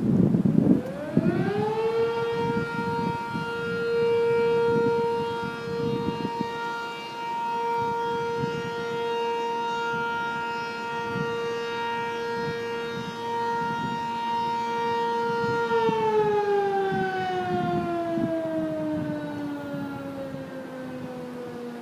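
Sentry 15V1T electromechanical siren winding up to a steady single tone, holding it for about fourteen seconds, then winding down in a slow falling glide, with an echo.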